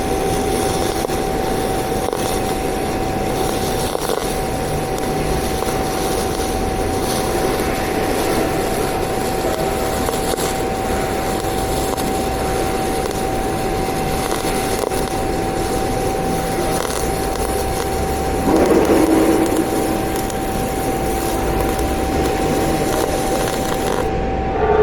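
GMAW (MIG) welding arc on solid wire, a steady noisy hiss with a constant tone under it. It swells briefly about three-quarters of the way through, and the high hiss drops out near the end.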